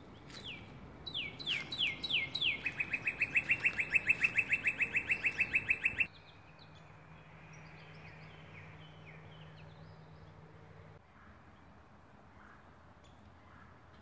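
A songbird sings a few loud down-slurred whistles, then a fast, even trill of about seven notes a second, which cuts off suddenly about six seconds in. Fainter bird chirps follow over a low steady hum.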